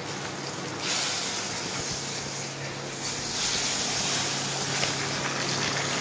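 Food sizzling in hot oil on an induction cooker, a steady hiss that swells about a second in, over a constant low hum.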